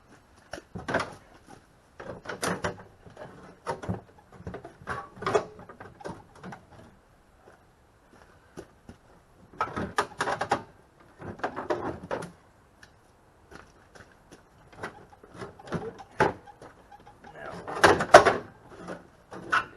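Irregular clunks, knocks and rattles of the riding mower's body panels being handled and fitted back onto the mower, loudest near the end.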